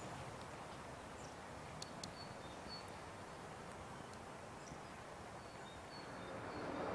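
Faint outdoor ambience: a steady hiss with short high chirps scattered through it, growing a little louder near the end.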